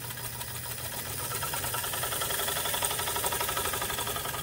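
A DeLuxe Precision President clone 15 sewing machine running under its electric motor: a steady motor hum with the needle bar stitching in a fast, even rhythm that picks up about a second in.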